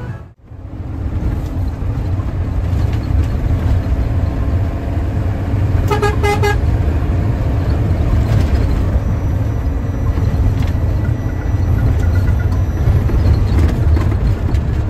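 Steady low rumble of a front-engined Hino AK bus running at speed, heard from inside the cabin. About six seconds in, a horn sounds several short quick blasts.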